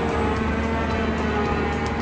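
A heavy machine's engine running steadily.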